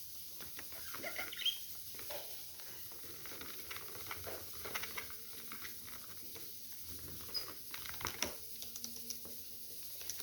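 Budgerigars making scattered soft chirps and scratchy clicks, with a sharper short chirp about a second and a half in.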